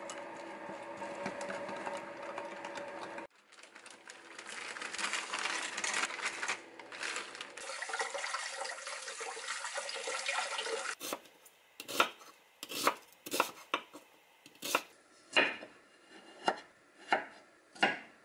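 A wooden spoon stirs sauce in a glass bowl over a steady hum. Then tap water runs into a stainless-steel colander as cauliflower and broccoli are rinsed. Near the end a kitchen knife chops them on a wooden cutting board: about nine sharp, unevenly spaced chops.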